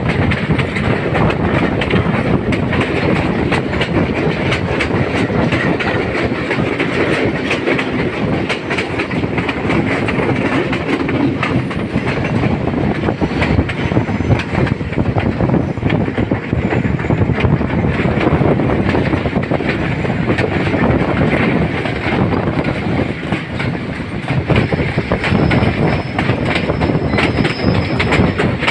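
A passenger train running on the track, heard from beside its moving coach: a continuous rumble with the wheels clicking and clattering over the rails throughout.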